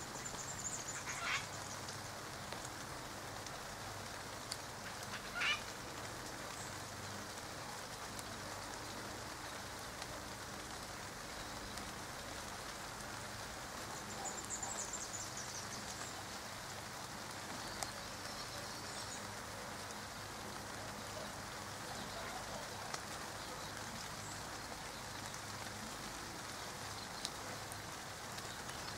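Light rain pattering steadily, with a few short bird calls over it. The loudest calls come about a second in and about five seconds in, and there are high trills around the middle.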